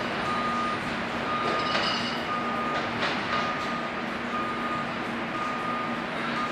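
Electronic beeping, about one half-second beep per second, over the steady rumble of a subway train pulling away down the tunnel.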